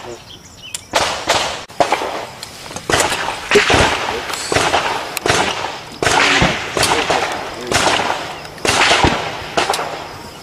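Handgun shots during a practical pistol course of fire: a long, irregular series of sharp reports starting about a second in, each with a short ringing tail.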